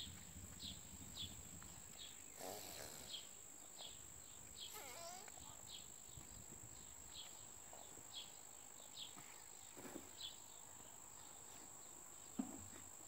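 Faint insect chorus on a summer evening: a steady high-pitched drone with a short chirp repeating about once a second.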